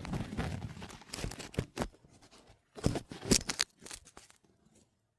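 Handling noise as the phone is set down: rustling, scraping and sharp knocks on the microphone, loudest about three seconds in, then cutting off suddenly.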